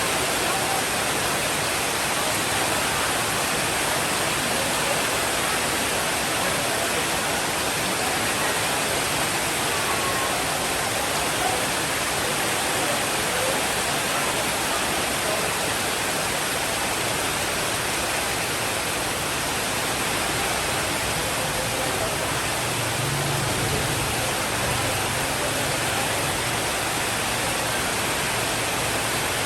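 Steady heavy rainfall, an even hiss with no breaks. About three-quarters of the way through, a faint low rumble of distant thunder rolls in under it for a few seconds.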